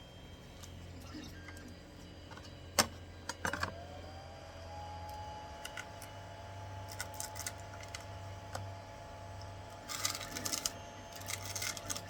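Cured resin supports being snapped and pulled off a resin 3D print: one sharp snap, then scattered clicks and brittle crackles as more supports break away. A faint whine rises and then holds steady from a few seconds in.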